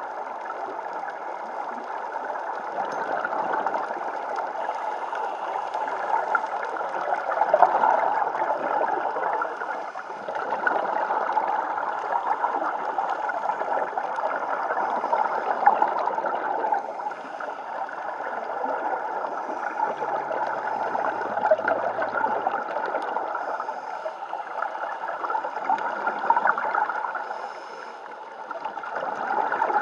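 Underwater gurgling of scuba divers' exhaled bubbles from their regulators, a steady bubbling that swells and fades every few seconds.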